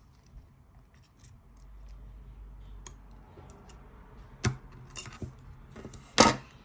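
Scissors snipping electrical tape on a small food-processor motor, with scattered light clicks and one sharp clack near the end.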